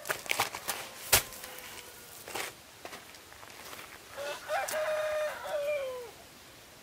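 A few sharp knocks and clicks, the loudest about a second in, then a rooster crows once, a single call of about two seconds that holds its pitch and drops at the end.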